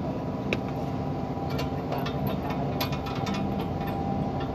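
Steady low mechanical hum, with a run of light metallic clicks and taps from hand work on a truck's clutch pressure plate starting about a second and a half in and lasting about two seconds.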